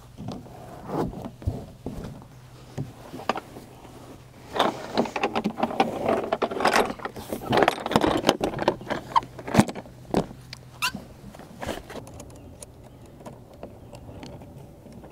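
A long, stiff sheet of UHMW plastic being unrolled and flipped over on grass: scraping, flexing and flapping with sharp knocks, loudest through the middle. Near the end come lighter clinks of steel cable and snap hooks being handled.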